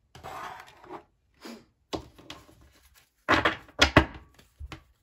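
Hands handling objects on a wooden tabletop: a brief rustle at the start, then a few sharp knocks and taps about three and a half to four seconds in.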